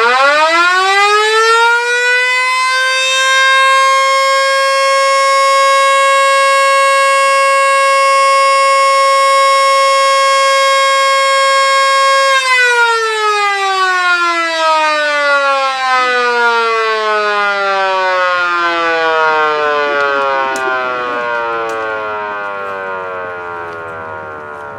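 Electromechanical outdoor warning siren winding up quickly to a steady single tone, held for about twelve seconds, then cut off and winding down with its pitch falling slowly.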